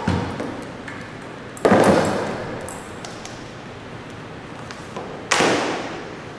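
Knocks of a metal airless paint sprayer and its hose fittings on a glass-topped table: a small knock at the start, then two sharp knocks that ring off briefly, about 1.7 s and 5.3 s in.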